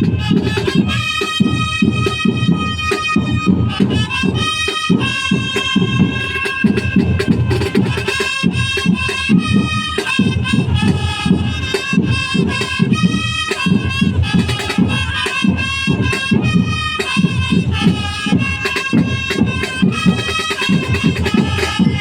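Music: a melody of held notes over a steady, dense beat.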